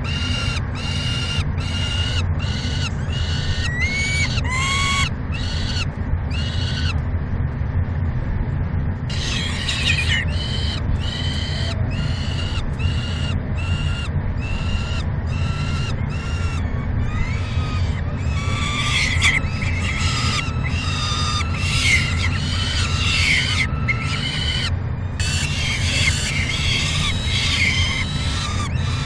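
Peregrine falcons at the nest giving a long series of short, harsh, repeated cries, about two a second. The calls break off for a couple of seconds about a quarter of the way in, then resume faster and more crowded. A steady low hum runs underneath.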